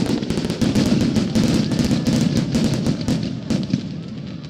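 Starmine fireworks barrage: a rapid string of shell bursts and crackles, many per second, thinning out near the end.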